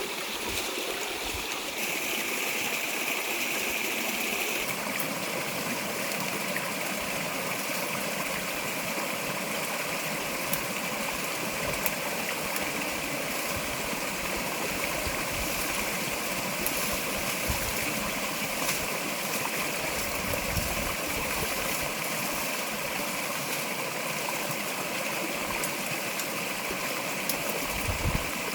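Steady rushing noise like running water, with a few soft low thumps.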